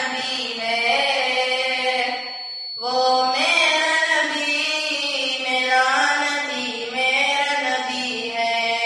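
A boy's voice singing an unaccompanied Urdu naat into a microphone, in long held, wavering notes, with a short breath pause about two and a half seconds in.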